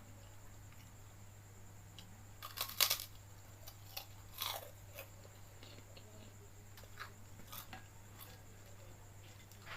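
Close-miked eating: crunchy bites and chewing, loudest in a cluster about two and a half to three seconds in, then sparser small mouth clicks.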